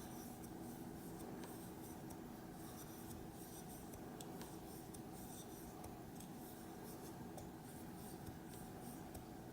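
Faint rustling and light ticks of a crochet hook working cotton-blend yarn as chain stitches are made, over a steady low hum.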